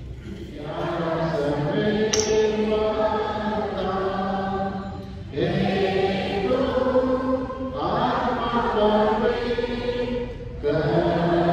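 Church congregation singing a slow hymn together, in long held phrases with brief pauses between them.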